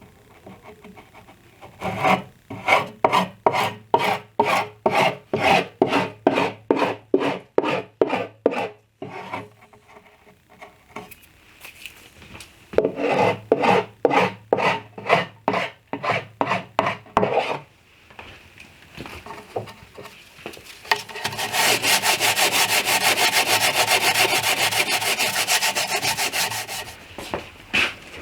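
Hand file rasping along wood edge banding to trim it flush on plywood shelf edges, in regular strokes about two a second, in two runs with a pause between. Near the end the filing turns into a fast, continuous rasping for several seconds.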